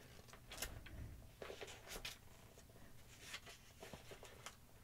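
Near silence, with a few faint, scattered clicks and rustles from handling things while a Bible passage is being looked up.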